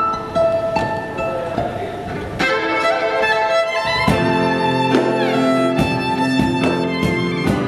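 Violin played live over a backing track. About two and a half seconds in a beat enters, roughly two strikes a second, and the accompaniment fills out with bass.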